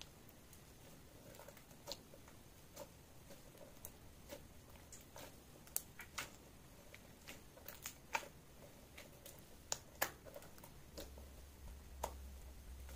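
Clear slime being kneaded and stretched by hand, giving irregular sticky clicks and small pops as it folds and pulls apart. A faint low hum comes in near the end.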